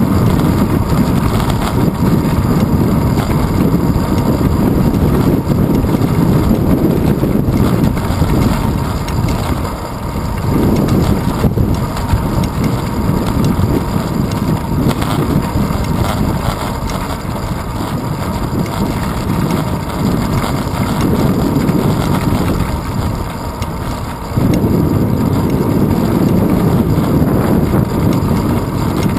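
Wind buffeting the microphone of a handlebar-mounted GoPro Hero 2 on a moving bicycle: a loud, steady low rumble with road and tyre noise under it. It eases briefly twice, about a third of the way in and again shortly before the end.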